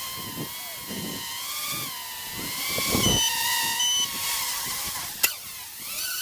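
Awesome Q95 micro brushless quadcopter's motors and propellers whining as it hovers low, the pitch wavering with throttle. From about three seconds in, the quad's beeper sounds in short high repeated beeps, and there is one sharp click about five seconds in.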